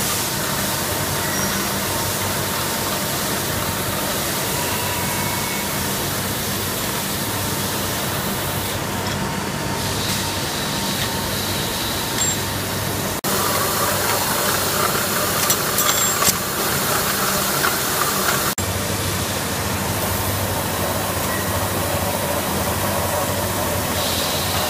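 Automated production machinery running on a factory floor: a steady mechanical hum and hiss with a few faint clicks. The noise is louder and hissier for about five seconds in the middle.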